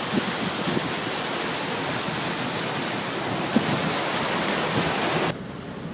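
Steady rush of water or heavy rain, an even hiss that cuts off suddenly near the end.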